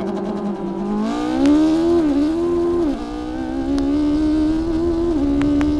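Ariel Atom V8's V8 engine held at steady launch-control revs, then revving up hard as the clutch comes out. The pitch climbs and dips three times as it shifts up through the gears.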